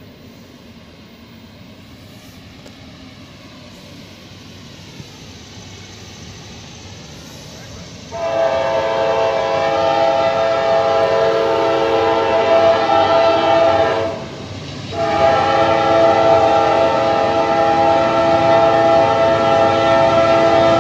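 An approaching Norfolk Southern freight locomotive: its low rumble grows slowly, then its multi-tone air horn sounds a long blast of about six seconds, a short break, and a second long blast.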